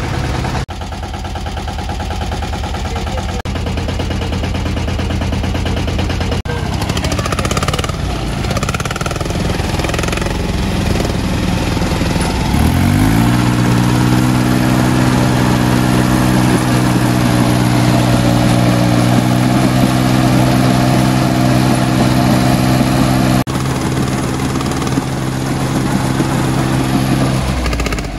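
Small tractor diesel engines running hard. About 13 seconds in, the VST Shakti VT224-1D 4WD tractor's engine revs up and holds high and steady, labouring under load as it pulls a stuck mini tractor out of a canal on a tow rope.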